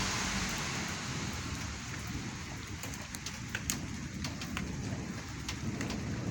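Rain falling in a thunderstorm, drops ticking sharply and irregularly on a nearby surface over a steady hiss. A louder rushing noise fades away in the first second.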